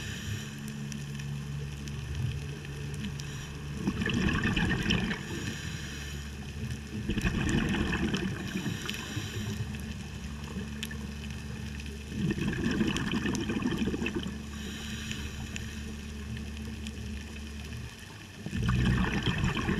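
Scuba diver's exhaled bubbles from the regulator heard underwater: four gurgling surges about every four to five seconds, following the breathing rhythm. A steady low hum fills the gaps between them.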